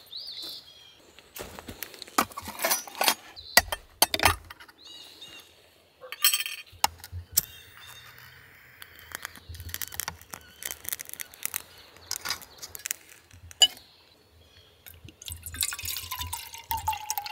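Clinks and knocks of camp cooking gear being handled. About fifteen seconds in, water starts pouring from a plastic canteen into a steel canteen cup on a small camp stove.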